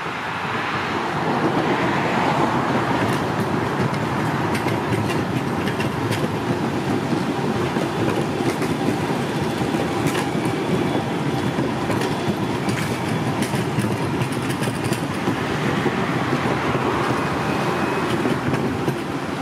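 Alstom Citadis Dualis electric tram-train passing close by as a coupled pair of units: a steady rolling rumble of steel wheels on rail, with scattered sharp clicks from the wheels. The sound swells about a second in as the train arrives and holds through its long pass.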